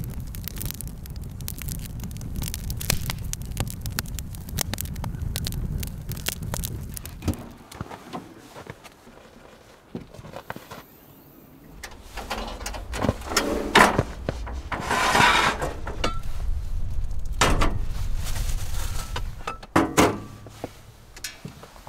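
Campfire crackling with many sharp pops for about seven seconds. After a short lull come knocks, scrapes and clunks as the Jeep's rear tailgate is opened and cookware is handled: a pot and a cast iron skillet set on the fold-down table, then a drawer pulled out.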